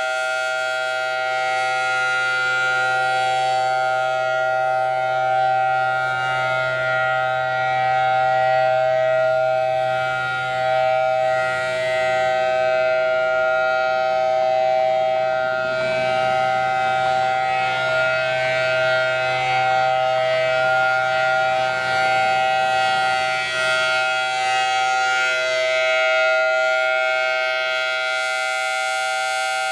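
Thunderbolt 1000T civil-defense siren sounding a steady tone with several pitches held together over a low hum. Its loudness swells and dips every several seconds without any change in pitch.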